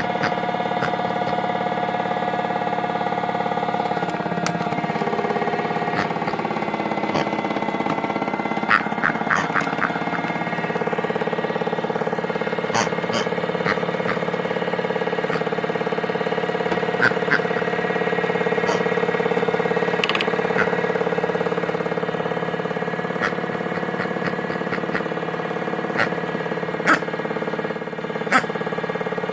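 Modified Miele toy washing machine running: a steady electric motor hum from the turning drum, shifting in pitch about four seconds in and again near eleven seconds, with a few scattered clicks and knocks.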